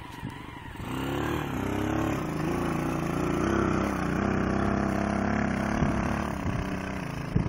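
Bashan 250 cc quad's engine running under throttle. It comes up about a second in and its pitch wavers up and down as the quad is driven across the soil.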